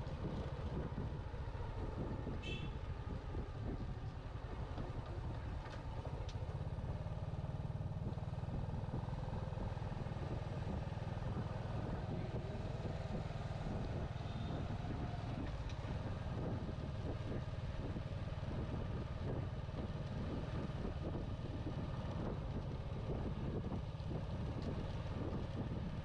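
Steady low rumble of a vehicle on the road.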